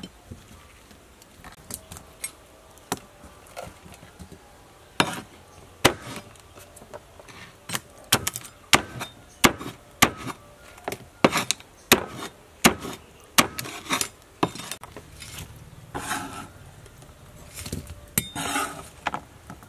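Cleaver chopping cooked quail on a wooden cutting board: a long run of sharp chops, sparse at first, then coming quickly, most under a second apart, through the middle. A few longer, softer sounds follow near the end.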